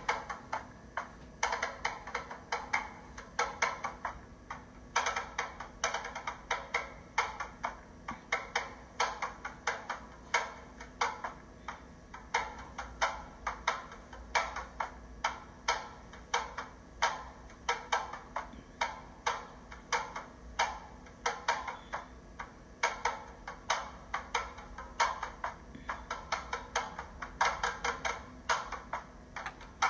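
Background music: a sparse percussion track of sharp, dry clicks keeping a steady rhythm, a few strikes each second.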